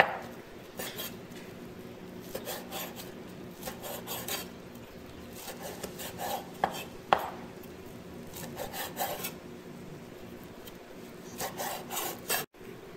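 Chinese cleaver slicing a thin egg omelette into strips on a round wooden chopping board, the blade rasping through and knocking on the wood in short runs of strokes with pauses between. A faint steady hum runs underneath.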